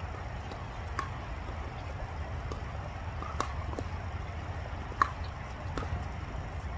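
Tennis ball being hit with rackets and bouncing on the court during a rally: a handful of short, sharp knocks, the loudest about five seconds in, over a steady low rumble.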